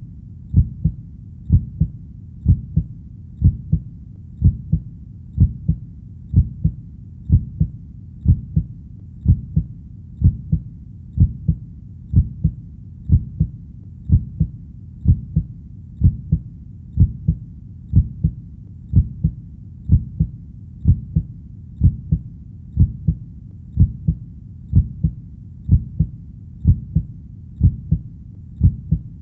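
Human heartbeat, a steady low lub-dub double thump repeating at about one beat a second.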